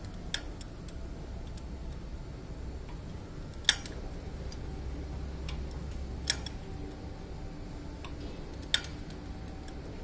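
Sharp metallic clicks of a socket wrench being worked on the piston bolts of a concrete pump, four louder clicks a couple of seconds apart with fainter ticks between, over a low steady hum.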